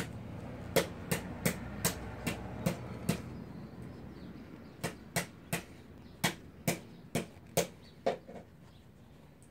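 Sharp knocks in a steady rhythm, about two to three a second. They stop after about three seconds and start again for another three or four. A low steady hum under the first few seconds fades away.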